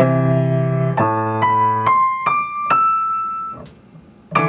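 Grand piano played with both hands, legato: a low chord held under a right-hand melody that steps upward note by note, about two notes a second. The top note is held and fades out, and after a brief pause a new chord is struck near the end.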